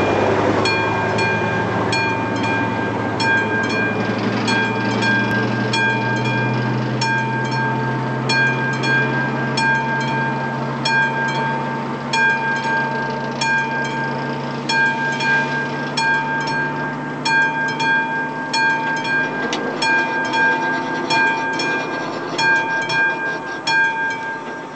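Class 754 diesel locomotives approaching in the distance: a steady low engine hum. Over it, a high ringing tone with overtones repeats about every two-thirds of a second.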